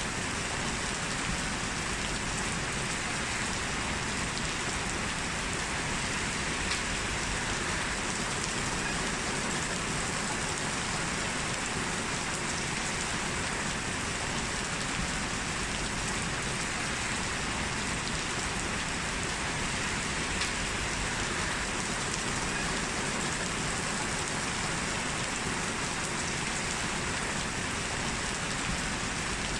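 Heavy rain falling steadily and densely on hard surfaces, an even hiss of drops with no let-up.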